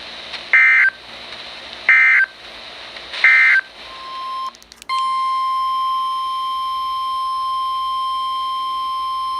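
Emergency Alert System end-of-message signal: three short bursts of SAME digital data tones about 1.4 seconds apart. A brief steady tone and a crackle follow. Then, about five seconds in, a long steady tone near 1 kHz starts and holds: the NOAA Weather Radio 1050 Hz attention signal that announces the next warning.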